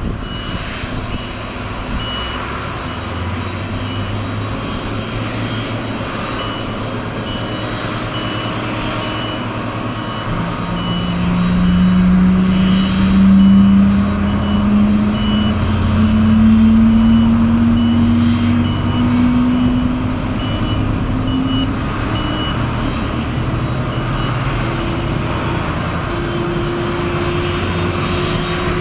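Boeing 767-300ER's General Electric CF6 turbofan engines running on the ground, with a low hum that climbs slowly in pitch from about ten seconds in. A ground vehicle's reversing beeper repeats steadily underneath.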